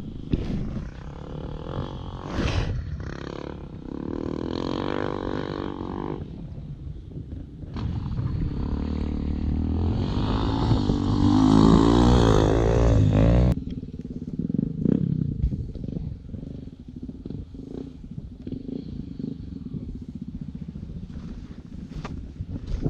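Enduro dirt bike engines revving up and down as the bikes ride the track, the pitch rising and falling with throttle and gear changes. The sound builds to its loudest about eleven to thirteen seconds in, cuts off suddenly, and then continues as a quieter, uneven engine sound.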